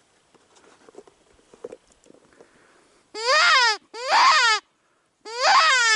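Predator call playing an animal distress cry to lure coyotes: after a few seconds of faint rustling, loud wailing cries under a second each, rising then falling in pitch, repeated three times with the last still going at the end.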